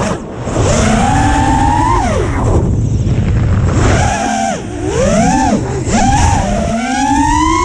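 Brushless motors (BrotherHobby 2206 2450kv) spinning Gemfan Flash 5-inch props on a 5-inch FPV quadcopter, whining in a pitch that rises and falls with the throttle. It climbs in the first two seconds and drops, punches again about four seconds in, and rises in a long whine near the end, over a low rush of wind on the onboard camera's microphone.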